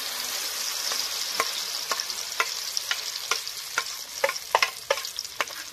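Spiced lentil-and-egg batter hitting hot oil in a kadai and frying with a steady sizzle. Sharp pops crackle through it, coming more often from about a second and a half in.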